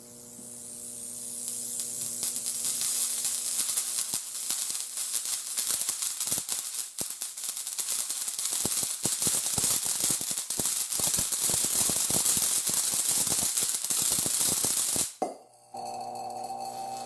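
High-voltage discharge crackling and hissing through a light bulb fed at up to 28,000 volts, building over the first few seconds as the voltage is turned up. It cuts off suddenly near the end, leaving a steady mains hum.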